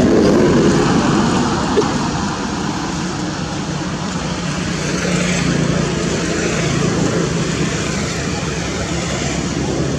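A motor vehicle's engine running steadily, with a low hum, a little louder in the first second.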